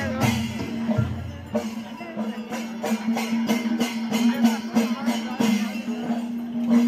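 Music with a steady drone under a regular percussion beat and jingling metallic strokes, with a wavering melody line over it.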